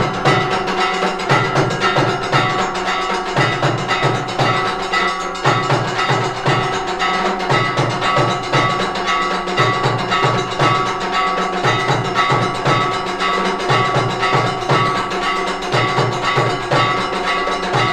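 Aarti music: bells ringing continuously over a repeating drum rhythm.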